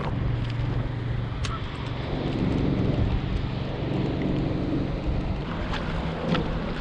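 Steady wind noise on the microphone over water moving along a kayak hull as it is paddled, with a few faint clicks.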